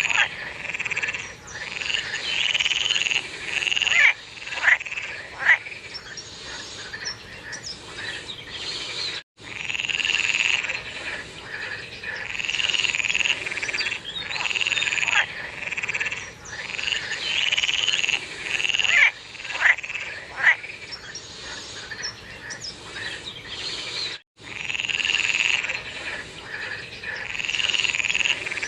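A chorus of frogs croaking over and over, with a few sharper, louder single calls standing out. The sound cuts out for a split second twice.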